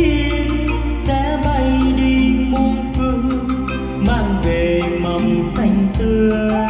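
Karaoke backing track of a slow Vietnamese ballad, with a man singing into a microphone through the LH4 mixer's echo and reverb effect.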